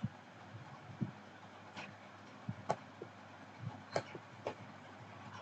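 Several short, sharp clicks at irregular intervals, about eight in all, against quiet room tone: a computer mouse being clicked while operating a simulator on screen.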